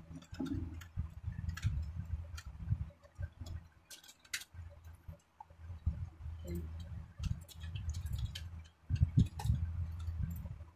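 Handling of a compact mirror and a makeup brush: scattered small clicks and irregular low rumbling handling noise, with a louder bump about nine seconds in.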